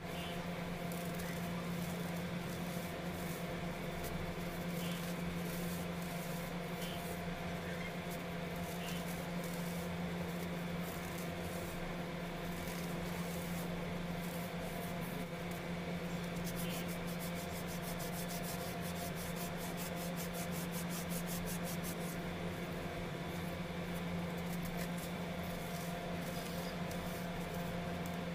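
Hands crumbling caked lumps of baking soda and rubbing the powder between the fingers: a continuous soft crunching and rubbing, with a quick even run of crunches past the middle. A steady low hum runs underneath.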